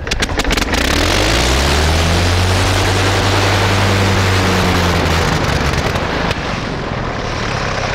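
1918 Gnome 160 hp nine-cylinder rotary aero engine hand-propped to life. A few firing pops, then it catches within the first second and rises in pitch to a loud, steady run. About five seconds in the pitch falls somewhat.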